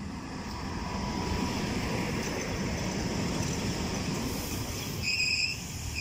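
ET22 electric locomotive passing close by with a train of open coal wagons. Its wheels rumble on the rails, growing louder over the first second as it arrives, with a brief high squeal near the end.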